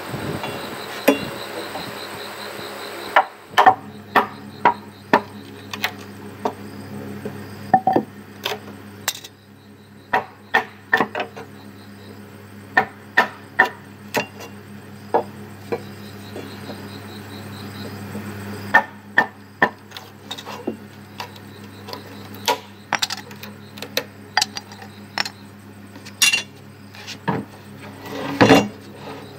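Sharp wooden knocks as a wooden baton hammers the back of a machete blade driven into a thick bamboo tube to chop through it. The strikes come in runs of several, about two a second.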